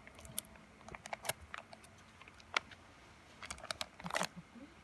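Foil seal being peeled and torn off a plastic tub of shisha tobacco, making scattered small crackles and clicks.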